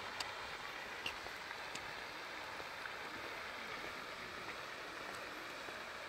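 Steady hiss of a jet fountain's spray falling onto the lake, heard from afar, with a few faint ticks.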